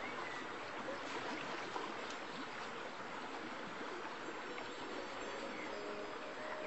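Steady rushing of running water, like a flowing stream, laid in as a background sound track.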